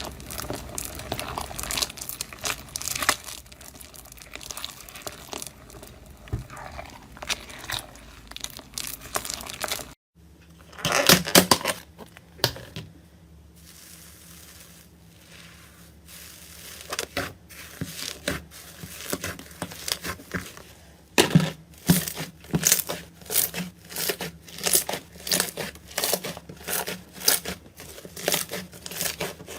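Close-up crinkling and crackling of a crunchy material being pressed and pulled apart by hand, in separate clips joined by a brief silent cut. Near the end the crackles come sharply and evenly, about two a second.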